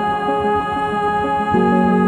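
Background music: sustained organ-like keyboard chords, with a fuller, louder low chord coming in about one and a half seconds in.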